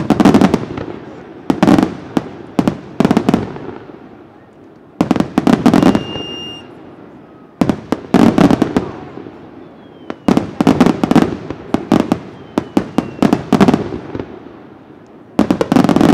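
Aerial fireworks shells bursting in quick volleys of sharp bangs, a new cluster every second or two, each volley trailing off into echo. A short steady whistle sounds about six seconds in.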